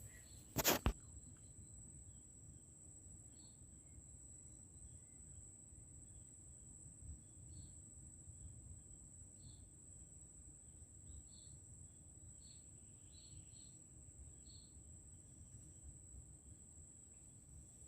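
Faint outdoor ambience: a steady high-pitched insect drone with scattered short chirps over a low rumble. A single sharp click comes just under a second in.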